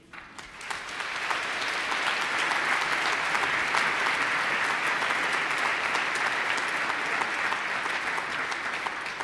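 Congregation applauding: many hands clapping together, swelling within the first second, holding steady, then tapering off near the end.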